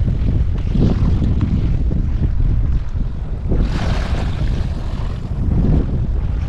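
Wind buffeting the microphone: a heavy, gusting low rumble, with a brief plastic rustle from the bait packet about four seconds in.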